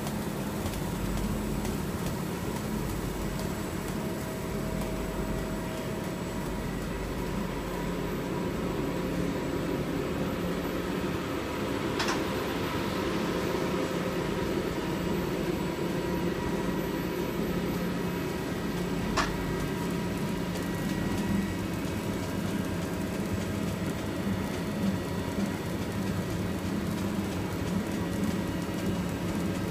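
3D lens and hologram film embossing machine running: a steady mechanical hum with a few constant tones from its motors and turning rollers as PET film feeds through. Two sharp clicks stand out partway through.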